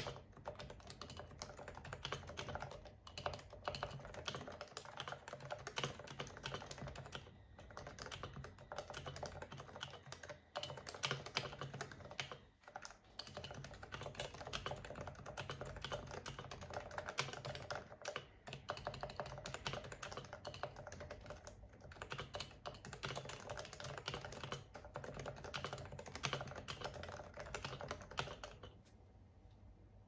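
Steady fast typing on a Yui660c CB v2 keyboard with stock 45g Topre switches and stock PBT keycaps: a dense run of keystrokes with a few brief pauses, stopping shortly before the end.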